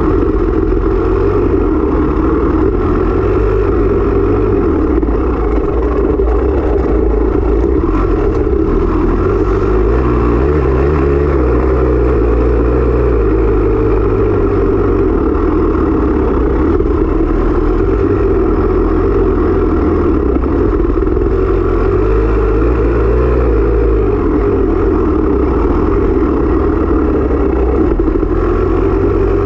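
Off-road dirt bike engine running loud and fairly steady under way, its pitch rising and falling slightly, heard from a camera mounted on the bike or rider.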